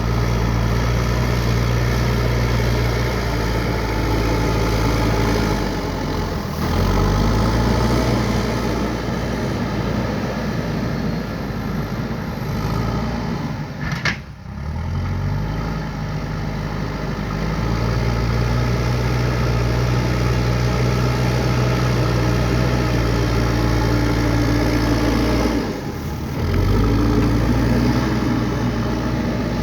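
JCB 3DX backhoe loader's diesel engine running steadily under load. Its pitch drops and picks back up several times as the working load changes, with a brief sharp knock about halfway through.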